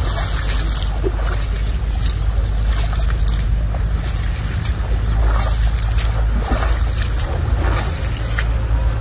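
Water splashing again and again as a man wading in the lake beats and hauls a fishing net through it, about ten sharp splashes, over a steady low wind rumble on the microphone.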